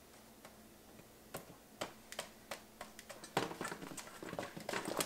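Light metal clicks and taps of a fork against a tin can, scattered at first and coming thicker near the end as the tin is handled.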